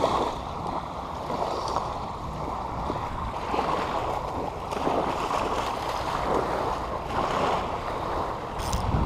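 Steady wash of shallow saltwater and wind noise on the microphone, with no single event standing out.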